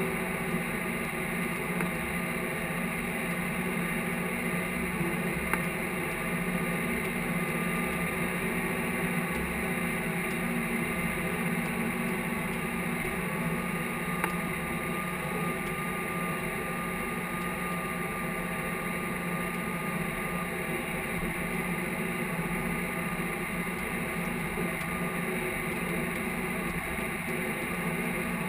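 Case IH tractor's diesel engine running steadily under load while pulling a field cultivator.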